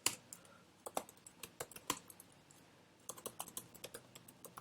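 Typing on a computer keyboard: irregular, crisp keystrokes in short runs, with a pause of about a second midway.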